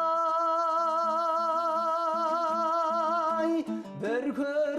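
A singer holds one long note with vibrato over plucked-string accompaniment in a Kazakh folk song. The note ends about three and a half seconds in, and the next sung phrase begins soon after.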